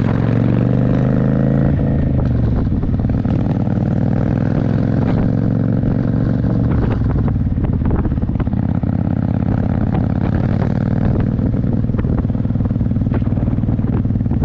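Motorcycle engine running steadily while cruising down the road, its pitch shifting a little at first, then holding even.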